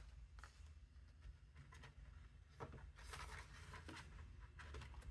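Faint rustling of paper banknotes being handled and tucked into a cash binder envelope, with a slightly louder rustle about three seconds in.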